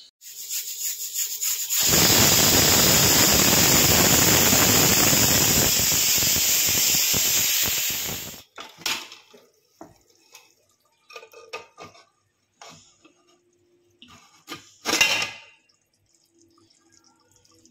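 Kitchen sounds while cooking: a loud, steady hissing rush that builds up over the first two seconds, runs for about six seconds and cuts off suddenly, then scattered clinks and knocks of utensils with one louder clatter near the end.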